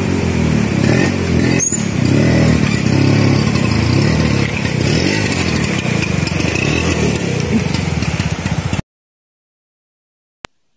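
Two-stroke Vespa scooter engine revving up and down unevenly under load. The sound cuts off suddenly about nine seconds in, and a single short click follows near the end.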